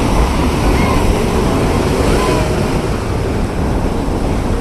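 Wind buffeting the microphone over the steady wash of sea surf, a loud, unbroken rumbling noise.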